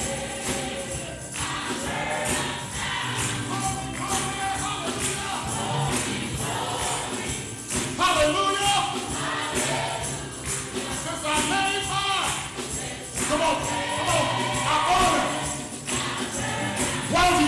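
Gospel choir singing to a steady beat with a tambourine jingling along.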